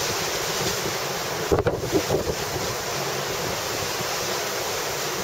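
Steady rush of wind and sea heard from the deck of a moving cruise ship, with wind buffeting the microphone in a few gusts about a second and a half in.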